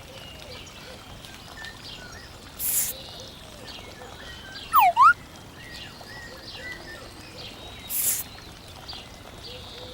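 Birds chirping and calling, with a loud whistled call that falls and then rises about five seconds in. Two short hissing swishes cut across it, about three seconds and eight seconds in.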